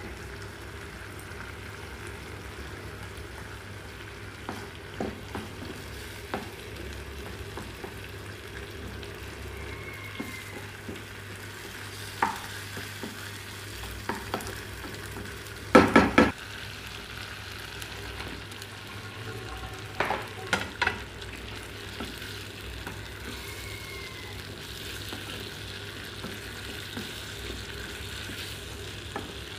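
Shrimp and carrots sizzling in sauce in a frying pan while being stirred, with a utensil knocking against the pan now and then; the loudest is a quick cluster of knocks about halfway through.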